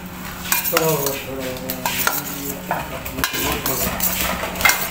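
Boiled potato cubes and eggs being stirred in a stainless steel mixing bowl, with repeated scrapes and clinks against the metal.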